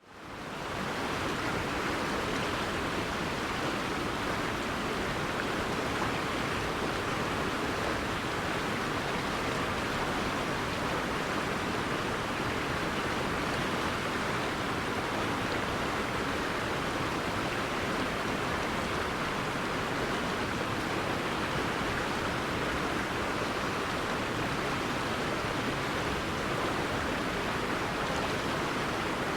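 River water flowing and rushing in a steady, unbroken wash, fading in at the very start.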